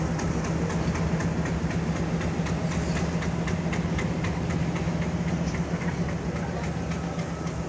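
Diesel locomotive engine idling: a steady low hum with faint repeated ticks over it.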